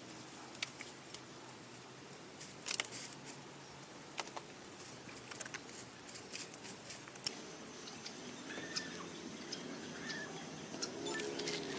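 Forest ambience: scattered small clicks and crackles, then, about seven seconds in, a steady high-pitched buzz starts suddenly, joined by short chirping calls.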